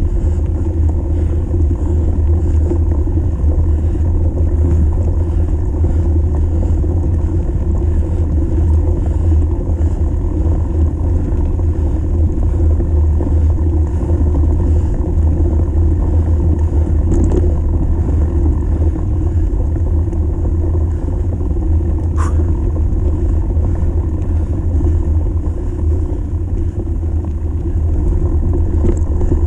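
Steady low rumble of a mountain bike being ridden over a dirt track, heard through an action camera riding along with it: wind and trail vibration on the microphone. One sharp click about two-thirds of the way through.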